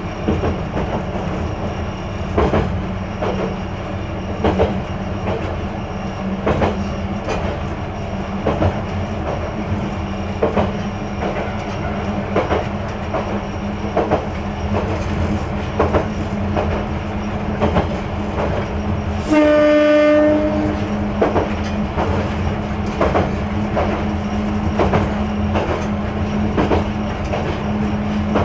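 Single-car diesel railcar running on single track, heard from inside the cab: a steady engine drone with regular wheel clacks over the rail joints every second or two. About two-thirds of the way through, the railcar sounds its horn once, for about a second and a half.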